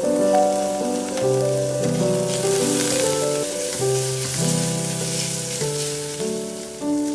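Food sizzling in hot oil in a cooking pot, the hiss swelling around the middle, under piano background music.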